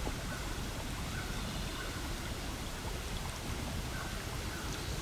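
Steady background noise: an even hiss with a low rumble underneath, without any distinct events.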